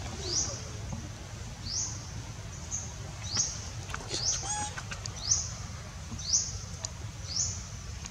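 A bird repeating a short, high chirp that sweeps upward, about once a second, over a steady low rumble.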